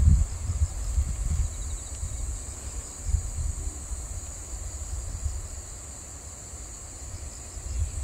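Insects chirring in a steady, high-pitched drone, over a low rumble that fades gradually after the first second or so.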